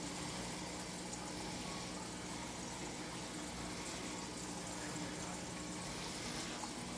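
Aquarium pump and water running: a steady bubbling water noise over a constant low hum.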